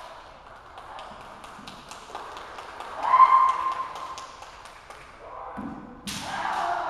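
Bamboo shinai clacking and tapping against each other again and again as two kendo fencers spar, with one loud kiai shout about three seconds in and a loud sudden burst of noise near the end.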